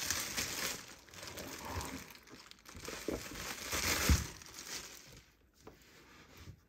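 Loose clear plastic bag crinkling and rustling in bursts as it is pulled off a die-cutting machine, with a dull knock about four seconds in as the machine is laid down flat; quieter rustling near the end.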